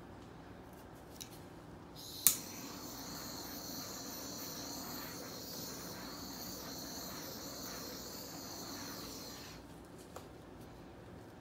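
Small handheld butane torch lit with a sharp click about two seconds in, then hissing steadily for about seven seconds as its flame is passed over wet acrylic pour paint, before it is shut off.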